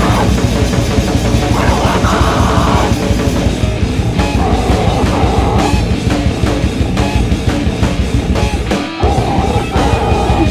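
Heavy metal band recording: distorted electric guitar riffing over bass and a drum kit, with a brief stop of the low end about nine seconds in before the band comes back in.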